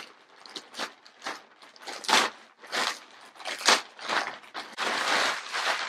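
Plastic shipping packaging crinkling and tearing as a mail package is opened by hand. The rustles come in irregular bursts, with a longer rip near the end.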